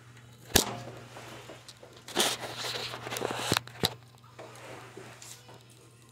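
A sharp knock about half a second in, then a second or so of close rubbing and scraping with two more clicks, as something touches the phone that is recording from the floor. A steady low hum runs underneath.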